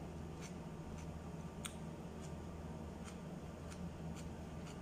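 Raw carrot crunching as it is chewed: short, crisp crackles about twice a second, over a steady low hum.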